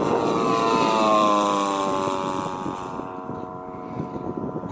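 Petrol engine and propeller of a large radio-controlled scale warbird model flying past: a steady engine drone, loudest about a second in, whose pitch drops as the plane goes by and then fades away.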